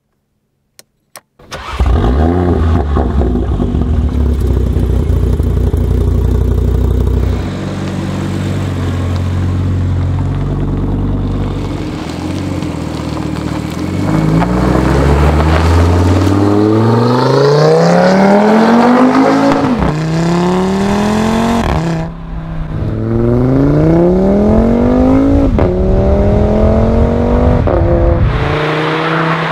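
Audi RS3 8V's turbocharged 2.5-litre five-cylinder, breathing through a REMUS stainless-steel cat-back sport exhaust. Two small clicks, then a push-button start with a loud flare and a steady idle. Later it pulls away hard: the pitch rises and drops sharply at each upshift, several times.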